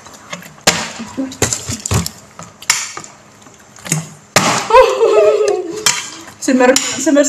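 Sharp clinks and knocks of spoons and forks against plates, scattered through the first few seconds; from about four seconds in, loud voices take over.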